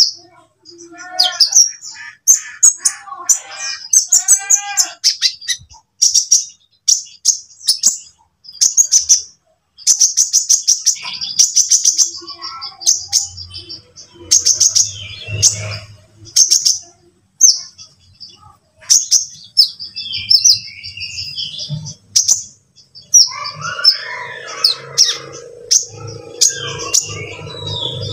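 Sunbird (konin) song: short, rapid, high-pitched chirping trills repeated every second or so, with lower warbled notes in the first few seconds. A low hum joins near the end.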